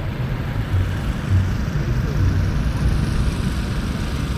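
Outdoor seafront ambience: a steady low rumble with uneven low pulses and a haze of noise above it.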